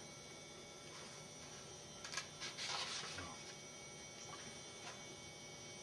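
Quiet room tone with a steady electrical hum, and a brief faint hiss about two and a half seconds in.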